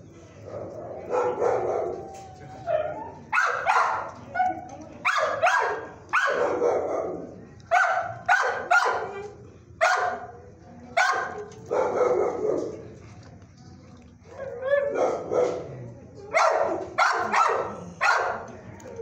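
Shelter dogs barking repeatedly: about twenty barks in loose groups, some in quick pairs, with a short lull a little past the middle.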